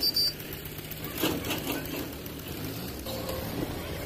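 Diesel tractor engine idling steadily, with a few sharp clacks in the first moment and again about a second in.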